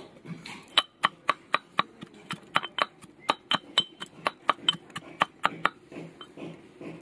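Iron pestle pounding ginger and garlic in an iron mortar (hamandista): sharp metallic clinks about four times a second, starting about a second in and stopping near the end.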